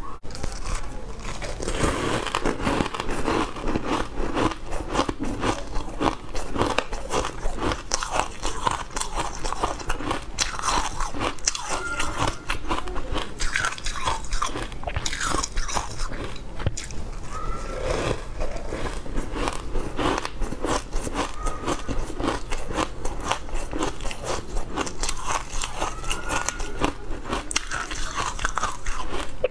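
Close-up crunching and chewing of white chunks coated in green powder, with dense crisp crackles throughout.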